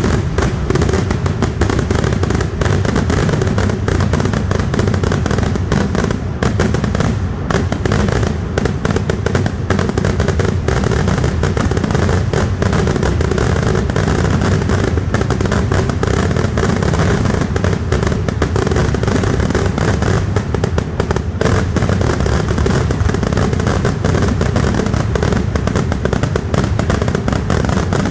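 Kerala vedikettu fireworks going off in a dense, unbroken barrage: bang after bang and crackle on crackle, too fast to count, with no pause.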